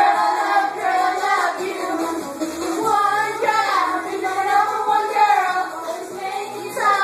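A high-pitched voice singing a gliding melody, with music.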